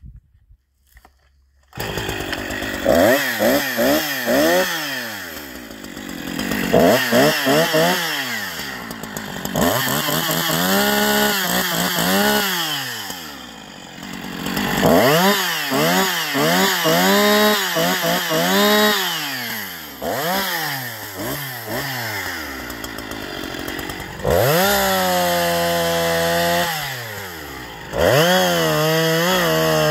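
Husqvarna 346 XPG two-stroke chainsaw starting up about two seconds in, then revved again and again, its pitch rising and falling with each blip of the throttle. Near the end it is held at high revs for a couple of longer stretches.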